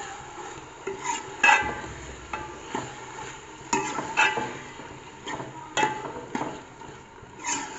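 A steel spoon stirring and scraping inside a metal cooking pot, with about a dozen irregular clinks that ring briefly against the pot wall, while eggs are mixed into cooked potato and cabbage. A faint sizzle sits underneath.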